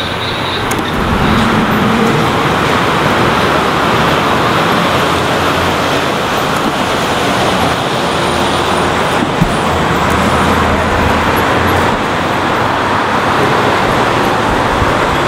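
Steady city street traffic with transit bus engines running, and a brief knock about nine seconds in.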